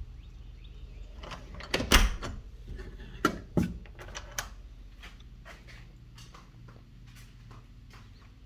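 A few knocks and clatters, loudest about two seconds in, with a short falling creak about three and a half seconds in.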